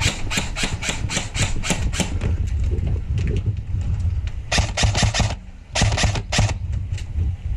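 Airsoft guns firing in rapid strings of sharp clicks, about five shots a second at first, then two tighter bursts in the middle, over a steady low rumble.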